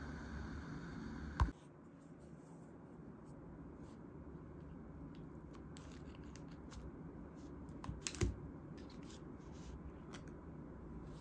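A steady background rumble cuts off with a sharp click about a second and a half in. Then come soft rustles and small clicks of plastic food packaging being handled and opened, with a short cluster of louder clicks later on.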